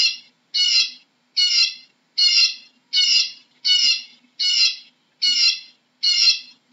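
Eurasian bullfinch giving a short call over and over, about nine calls at an even pace of roughly one every three-quarters of a second.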